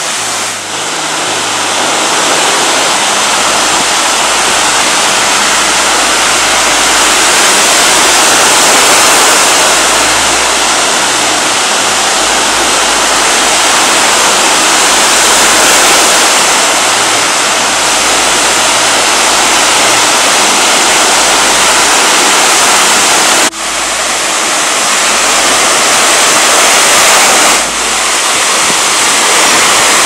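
Ocean surf breaking and washing over a rocky shore: a loud, continuous rush of waves that swells and eases, with brief drops in level a moment after the start and twice in the last third.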